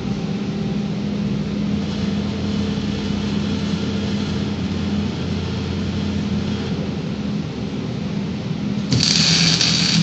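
A 4-axis gantry welding robot humming steadily as its torch travels between welds. About nine seconds in, the welding arc strikes again with a loud hiss.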